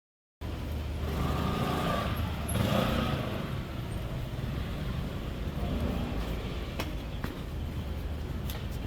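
City street ambience with road traffic: a steady rumble of vehicles and a vehicle passing close by in the first few seconds. It starts abruptly, with a few sharp ticks near the end.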